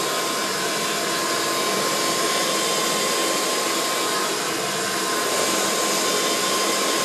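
Handheld hair dryer running steadily, blowing on hair: a constant rush of air with a steady whine through it.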